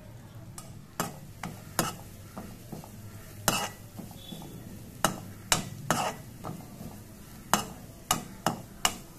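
Steel spoon scraping and knocking against a nonstick pan while stirring grated carrot frying in ghee: a string of sharp, irregular clicks from about a second in, over a faint sizzle and a steady low hum.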